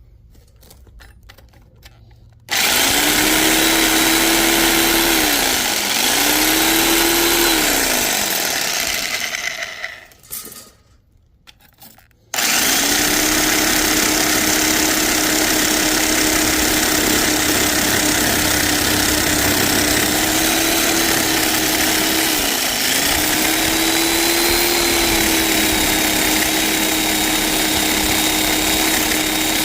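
Electric power tool cutting through a scrap metal grill topper: the motor starts about two seconds in and runs loudly with a steady hum that sags in pitch twice as it loads in the cut. It stops for a few seconds, then starts again and runs steadily on, sagging once more partway through.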